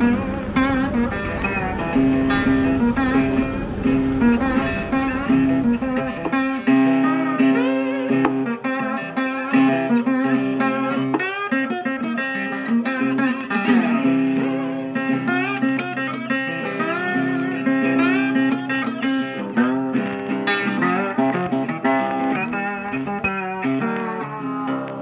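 Background music: guitar picking melodic notes over a sustained low note, with a steady hiss under it for the first six seconds or so. The music fades out at the end.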